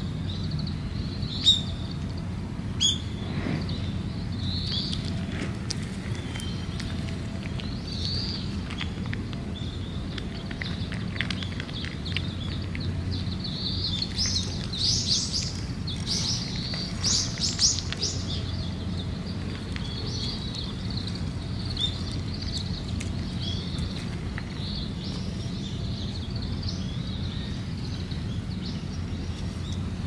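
Small birds chirping again and again, loudest about halfway through, over a steady low rumble, while a cat eats dry food from a metal dish close by. Two sharp clicks sound in the first few seconds.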